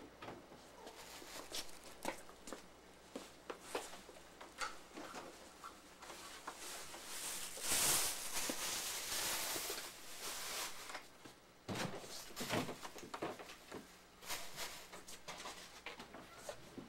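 Quiet scattered taps and clicks, with a rustle of clothing brushing close past about seven to eleven seconds in. A couple of short knocks follow soon after.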